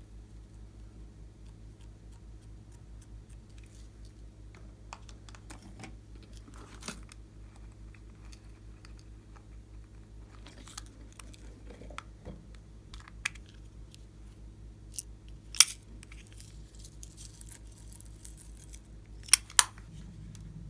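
Clear slime being worked by hand, making scattered small sticky clicks and crackles that grow busier partway through, with a few sharp snaps near the end. A steady low electrical hum runs underneath.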